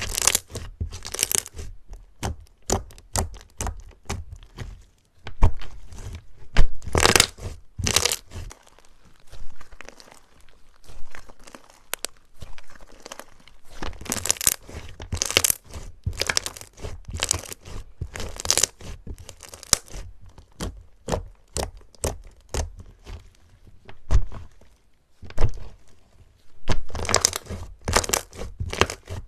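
Slime being squeezed and pulled close to the microphone, making an irregular run of sharp crackling pops and sticky tearing sounds, with a thinner patch about a third of the way in.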